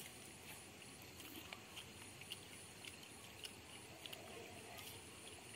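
Quiet eating of instant cup noodles with chopsticks: scattered faint clicks and slurps over a low steady hiss.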